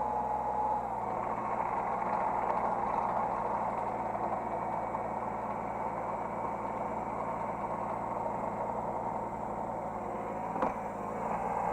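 Hydraulic excavator's diesel engine running steadily, heard from the operator's cab, with a single sharp click about ten and a half seconds in.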